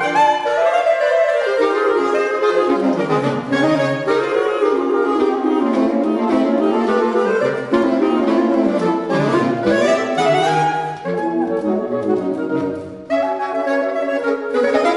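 Saxophone trio of alto, tenor and baritone saxophones playing a classical chamber piece, the three lines sounding together in continuously moving notes. Just before 13 s the sound briefly thins and drops, then all three come back in together sharply.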